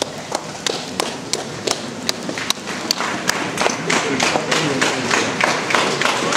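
Hand claps, at first a few sharp regular ones about three a second, then more and more people joining in as applause builds, with crowd voices underneath.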